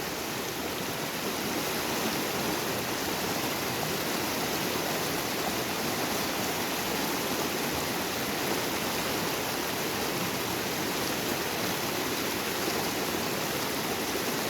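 A small river running with a steady rush of water.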